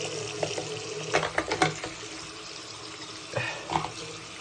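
Water running from a tap as a washing machine's drain filter is rinsed by hand. A few light clicks and knocks of handling come through, clustered about a second in and again near the end.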